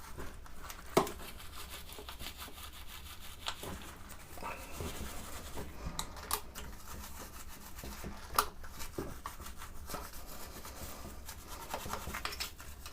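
Light rubbing and scrubbing on the solvent-wet parts of a Naumann 65 vintage sewing machine, with scattered small clicks and knocks. The sharpest click comes about eight seconds in.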